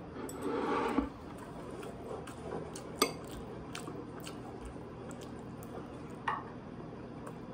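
Metal chopsticks clicking against a ceramic dinner plate while eating: a few sharp clicks, the loudest about three seconds in, over a steady low room hum.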